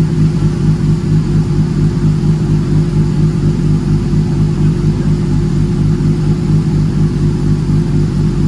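Kawasaki ZX6R race bike's inline-four engine idling steadily, with no revs.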